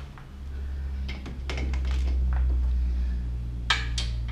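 A few irregular metal clinks of a hand tool being picked up and fitted to the lower ball joint nut on a front hub, over a steady low hum.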